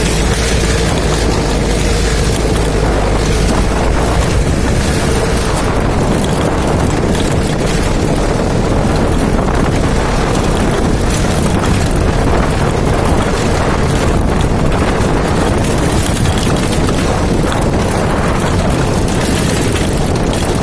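Off-road jeep driving along a dirt track: steady engine and vehicle noise mixed with wind buffeting the microphone, loud and unbroken.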